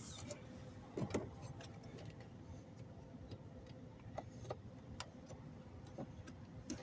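Faint, irregular clicks and taps of hands handling plastic dashboard trim, with a faint steady hum underneath.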